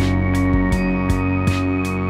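Background music with held chords over a steady beat.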